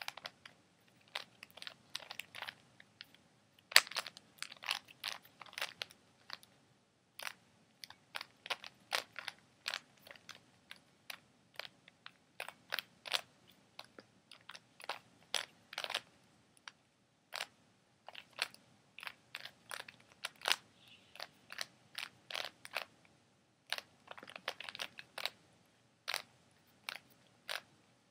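A 3x3 Rubik's cube being turned fast by hand: its plastic layers snap round with sharp clicks, several a second in irregular runs broken by brief pauses.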